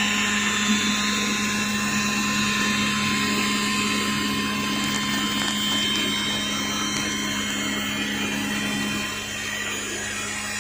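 A power tool's motor running steadily while machining metal, with a constant hum and a wide, noisy cutting sound. It eases off slightly near the end.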